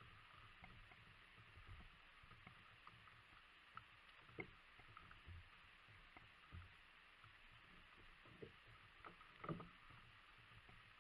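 Faint water sounds around a kayak, with scattered small clicks and low knocks against the hull or gear; the loudest knocks come about four seconds in and near the end.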